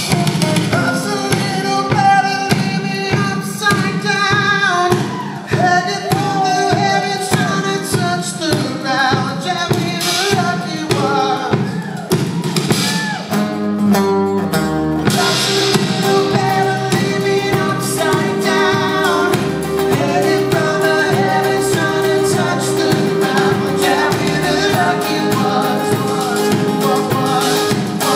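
Live band performing a song: a male lead singer over acoustic guitar and band. About halfway through, a single note is held steadily under the voice.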